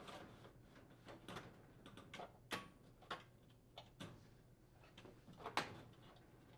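Faint knocks, clicks and light scraping as the induction range's main top is slid back and settled into place, about seven or eight short sharp taps, the loudest about two and a half seconds in and near the end.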